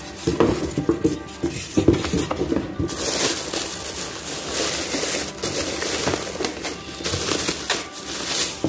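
Clear plastic bag crinkling and rustling as it is pulled off an electric waffle maker, with several sharp knocks from handling the appliance in the first few seconds.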